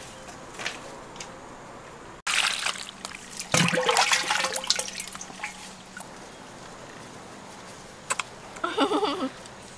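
Wet squelching of a raw octopus being squeezed and worked by hand in a wicker basket, starting suddenly about two seconds in and lasting about three seconds. A short voice near the end.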